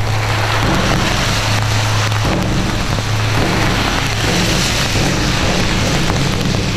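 Steady rain hissing, with a steady low hum underneath.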